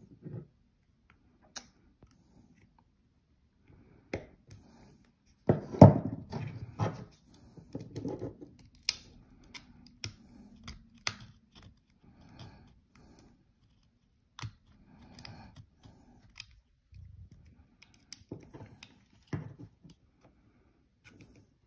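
Needle-nose pliers and a small flat blade working on cylindrical battery cells: irregular metal clicks, snips and scraping as the tabs and pieces are pried off the old cells, loudest in a cluster about six seconds in.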